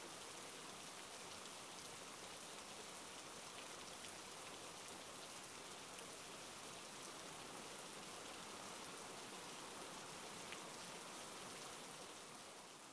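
Steady rain falling, an even hiss of many drops, beginning to fade out near the end.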